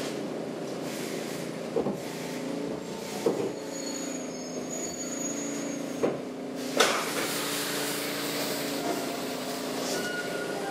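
Stockholm metro C6 train heard from inside the car, running slowly along the platform as it pulls into a station: a steady, multi-toned motor and running hum with a few sharp clunks from the wheels and couplings, and a brief thin high squeal about midway.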